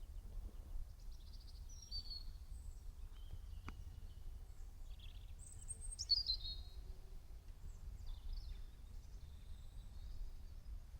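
Small songbirds chirping and calling in short scattered phrases, the loudest a bright burst about six seconds in, over a steady low rumble. A single sharp click sounds a little before the middle.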